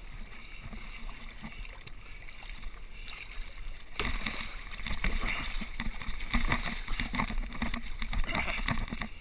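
Water splashing and churning against a boat's hull over the low, steady noise of the boat's engine. About four seconds in it turns suddenly louder and rougher with choppy splashes as a Pacific blue marlin thrashes at the surface right beside the boat, held at the leader for release.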